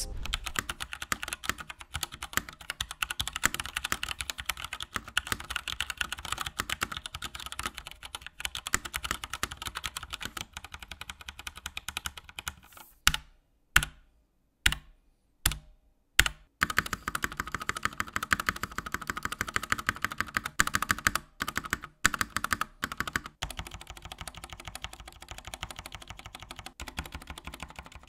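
Typing on an Epomaker GK96S mechanical keyboard with brown tactile switches and thick PBT keycaps: a fast, steady clatter of keystrokes. About 13 seconds in, it breaks into a few single, louder key presses, then steady typing resumes.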